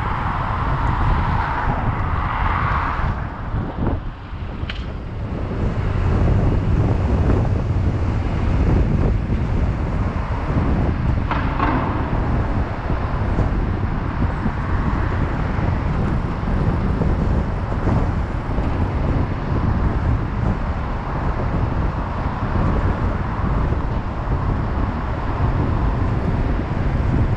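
Wind buffeting the microphone over street traffic noise: a steady low rumble, with a brief sharp click about five seconds in.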